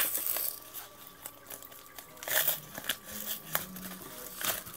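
Packaging crinkling and tearing in irregular rustles and small clicks as a mailed parcel is opened by hand.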